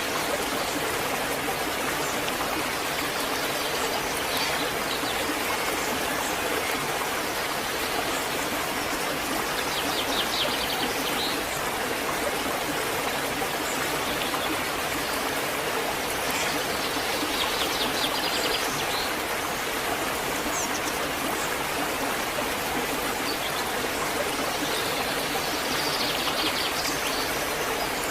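Waterfall rushing steadily. A bird chirps in short rapid trills three times: about a third of the way in, past the middle, and near the end.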